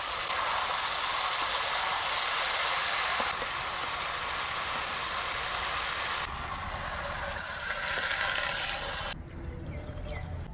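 Yardlong beans sizzling in hot oil in a karai as they are stir-fried, a steady loud hiss that stops about nine seconds in.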